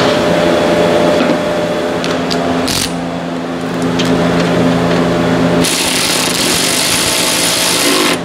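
Clicks and scraping from hand-tool work over a steady, pitched machine hum. A loud hiss starts about six seconds in and runs for over two seconds.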